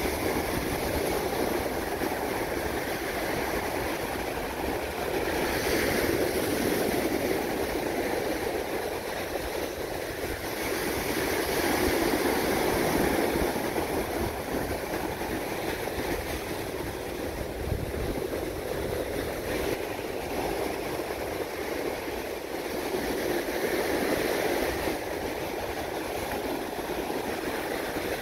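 Ocean surf breaking and washing up the beach. It is a steady rush of water that swells and eases every several seconds as waves come in.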